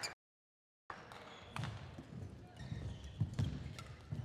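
The sound cuts out completely for most of a second near the start. Then the badminton players' footsteps thud on the court floor, with several sharp clicks over the hiss of the hall as a rally gets under way.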